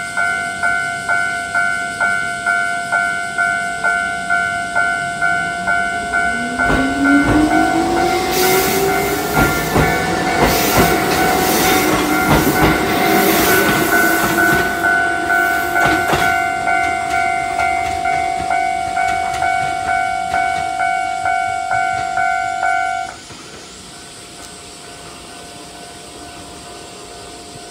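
Japanese level-crossing alarm ringing its electronic ding about twice a second as a Kotoden (Takamatsu-Kotohira Electric Railroad) electric train passes over the crossing. Through the middle the train's rumble, a few wheel clacks over rail joints and a whine rising in pitch sound over the bell. The crossing alarm stops near the end.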